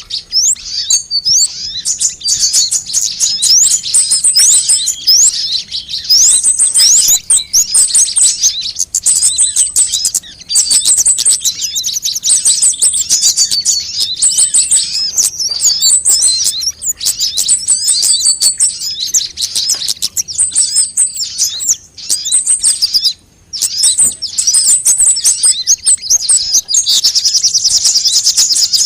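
Sunbird song: rapid, high-pitched chirps and thin trills in phrases repeated over and over, with a brief break about 23 seconds in.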